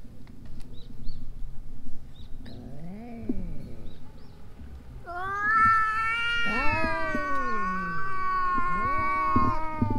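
Stray cats caterwauling in a standoff. A low growling call rises and falls about three seconds in, then about halfway through a long, drawn-out high yowl begins and holds, with deeper moaning calls overlapping it. These are the warning cries of cats squaring up to fight.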